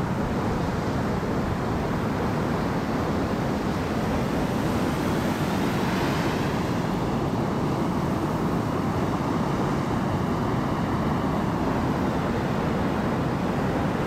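Ocean waves washing steadily, with wind.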